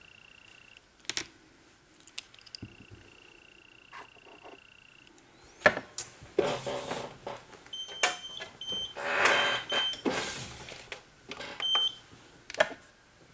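Scraper dragged across a metal nail-stamping plate to clear off black stamping polish: two short scrapes in the second half, with a few clicks and taps. A high steady electronic tone sounds on and off early on, with a few short beeps later.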